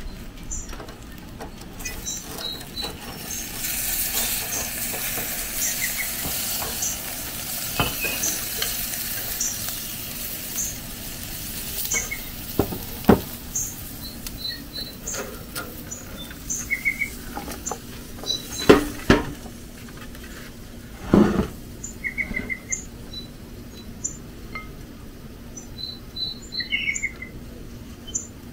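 Small birds chirping over and over, short high notes about once a second with a few brief trills. From about three seconds in there is a soft hiss for several seconds, and later come a few sharp clinks and knocks of plates and utensils, the loudest past the middle.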